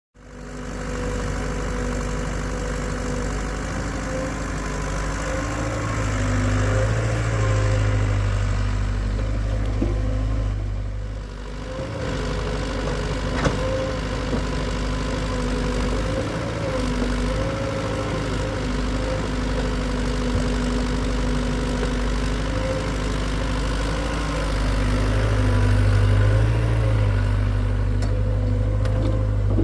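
Hitachi excavator's diesel engine running steadily, getting louder and heavier under load twice: for several seconds about a quarter of the way in, and again near the end.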